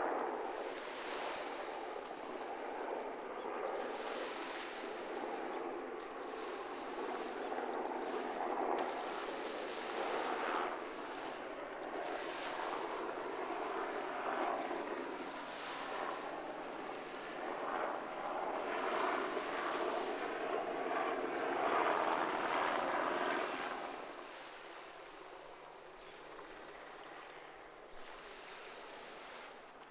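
Small waves breaking and washing up a sandy beach, swelling every few seconds, then quieter near the end.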